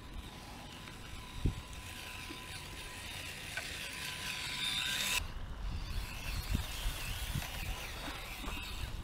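Axial SCX24 micro rock crawler driving: its small electric motor and gears whine, rising and falling with the throttle. There are scattered knocks and bumps, one sharp knock early on and more in the second half.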